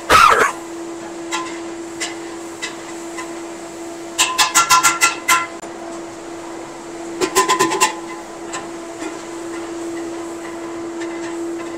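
Metal ladle clanking against a large aluminium cooking pot: a loud clatter at the start, then two quick runs of ringing metallic strikes, about nine some four seconds in and about six a few seconds later, over a steady hum.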